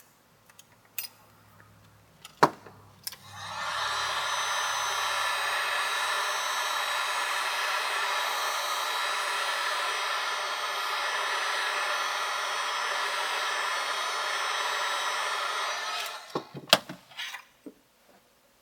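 A click, then a handheld hot-air blower runs with a steady rush for about thirteen seconds and stops, followed by a few clicks and taps. It is warming the adhesive that holds the iPad's glass digitizer so the glass can be pried off.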